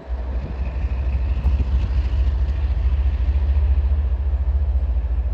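CSX diesel-electric locomotive approaching slowly, its engine giving a steady deep rumble.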